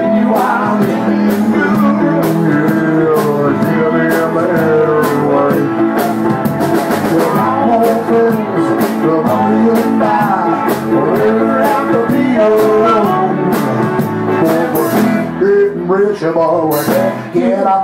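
Live band playing a rock number, with guitar and drum kit and cymbal hits throughout.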